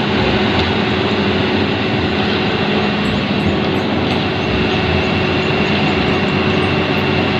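Hitachi crawler excavator's diesel engine running steadily under work, a dense, even mechanical noise with a constant low hum and a faint high whine.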